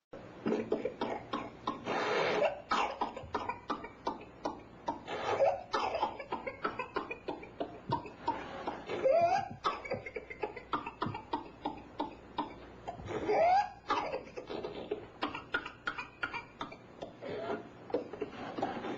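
Baby with whooping cough (pertussis) in coughing fits: rapid runs of short, sharp coughs, several times broken by a rising gasp for breath. That rising gasp is the 'whoop' typical of pertussis.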